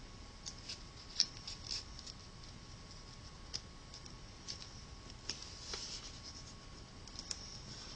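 A square sheet of origami paper being folded and creased flat by hand: scattered short, faint crinkles and rustles as fingers slide and press on the paper, a few slightly sharper about a second in and near the end, over a faint steady tone.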